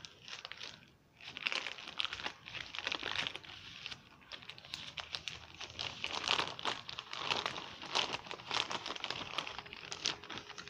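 Plastic courier mailer bag crinkling and rustling in a dense run of sharp crackles as it is opened and handled by hand, with a brief lull about a second in.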